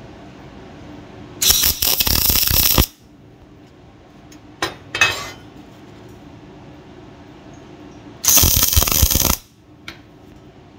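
MIG welder striking two tack welds on a steel plate, each a burst of arc noise lasting about a second: the first a second or so in, the second near the end. Two brief clicks fall between them.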